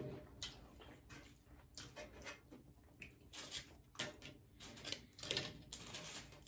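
Close-up chewing: irregular short crunches and mouth clicks of someone eating.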